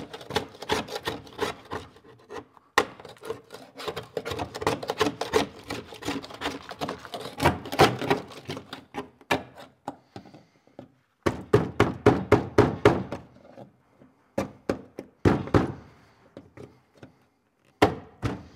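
Hand scraper chipping and scraping frozen Dynamat, tar-based sound deadener made brittle with dry ice, off a car's steel floor pan. It comes as quick runs of scraping strokes and clicks with short pauses between them.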